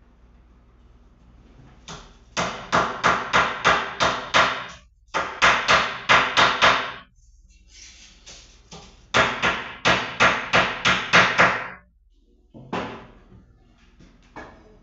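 Rapid hard strikes on a kitchen board or counter as a steak is worked on by hand, in three runs of quick blows, about four a second, with a few single knocks between them.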